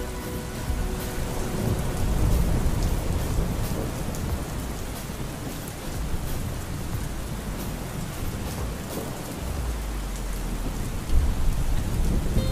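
Steady heavy rain with thunder rumbling low, swelling about two seconds in and again near the end.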